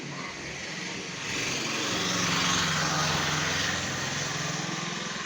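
A motor vehicle passing close by: an engine hum with road noise that swells from about a second in and fades away toward the end.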